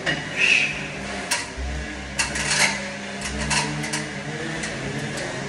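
Irregular sharp metallic clicks and taps of hand work on metal fittings, over a steady low hum.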